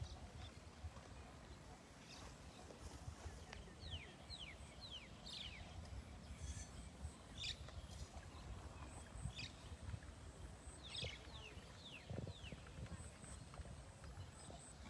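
Faint outdoor ambience with a low rumble, over which a bird gives short falling whistles in two quick runs of three or four.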